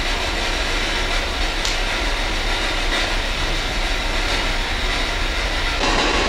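Spirit box scanning radio frequencies, giving a steady rush of choppy radio static with no voice coming through.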